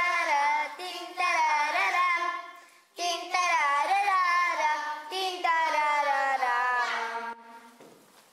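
A young girl singing solo in two sung phrases, with a brief break about three seconds in; the singing stops about a second before the end.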